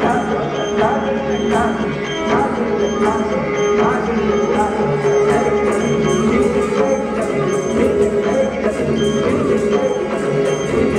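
Indian classical dance music for an Odissi performance. It has a steady drone under a gliding melodic line, with regular drum and cymbal strokes keeping the rhythm.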